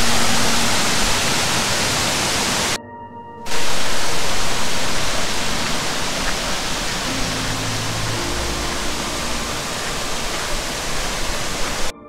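Steady rush of flowing water from a mountain valley stream. It cuts out abruptly for under a second about three seconds in and again at the end.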